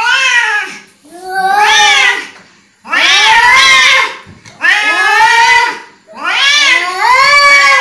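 Two domestic cats in a face-off yowling angrily: a run of about five or six long, drawn-out caterwauls, each about a second long, rising and then falling in pitch. This is the threatening yowl that cats make in a territorial standoff.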